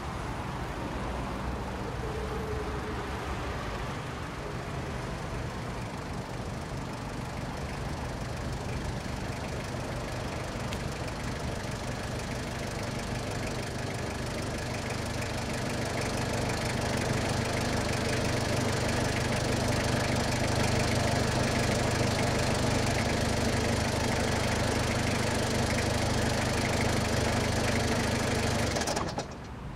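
A van's engine running steadily, growing louder as it draws near and pulls up, then stopping abruptly near the end.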